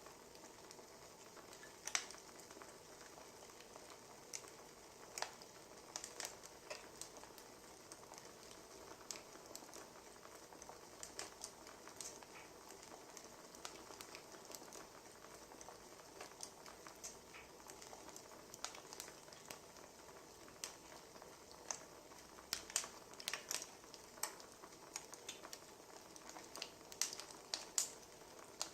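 Wood fire crackling: irregular sharp pops and snaps, in clusters near the end, over a faint steady hiss.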